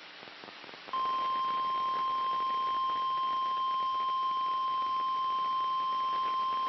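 NOAA Weather Radio 1050 Hz warning alarm tone: a single steady high beep that cuts in about a second in over faint radio static and holds. The tone is the alert that a warning message is about to be broadcast.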